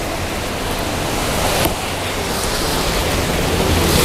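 A steady rushing noise under the scrape of a cutter knife slicing packing tape on a cardboard box, with one sharp click about one and a half seconds in.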